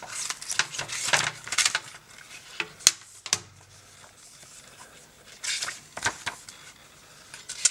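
Hands handling a metal steelbook case and the paper booklet inside it: rustling and scraping in bursts, with a couple of sharp clicks about three seconds in.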